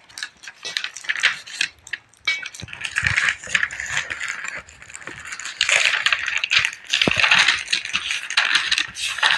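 Paper sheets in a plastic ring-binder file rustling and crinkling as the pages are turned and handled, in an irregular run of crackles and light taps.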